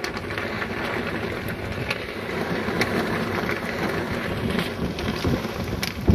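Strong wind buffeting the camcorder microphone, a steady rushing rumble, with a loud thump near the end.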